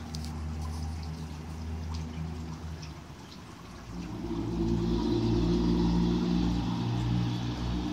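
Ragdoll cat purring right against the microphone as a steady low rumble, growing louder about four seconds in.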